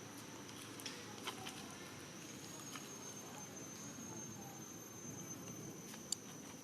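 A steady high-pitched insect drone, like crickets, over low background noise, with a few soft clicks and taps, the sharpest near the end.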